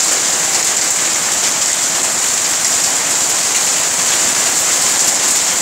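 Steady rain falling on a puddled street, an even hiss of drops splashing into standing water.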